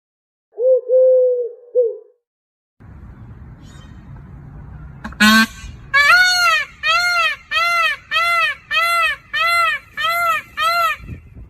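Goose honking: one drawn-out honk, then after a pause a run of about ten loud honks, about two a second.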